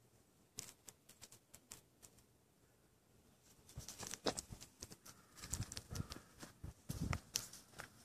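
Faint scattered clicks, then from about halfway a denser run of soft thumps and clicks: a phone being handled and moved while filming.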